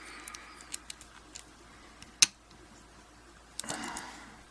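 Small metallic clicks and taps of a disassembled Yale 850 padlock's core and parts being handled, with one sharp, louder click a little past halfway.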